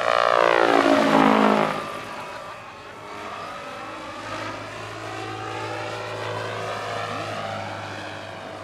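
Large radio-controlled scale AH-64D Apache model helicopter making a fast close pass, its rotor and drive whine falling steeply in pitch as it goes by in the first two seconds. It then flies on farther off, quieter and steadier, its pitch rising and falling gently as it manoeuvres.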